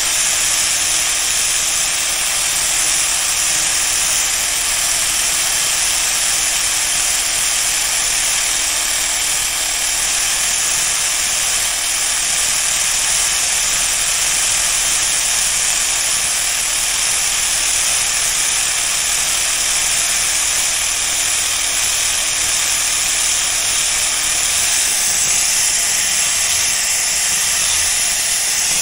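Power tool grinding the steel blade of tailor's shears, a steady abrasive hiss with no break, as pits and discoloration are taken off the blade surface.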